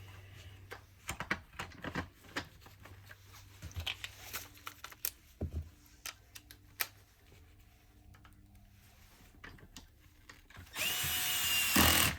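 Scattered clicks and knocks of parts being handled, then near the end a cordless screwdriver runs for about a second, driving a single screw into the vacuum cleaner's power head.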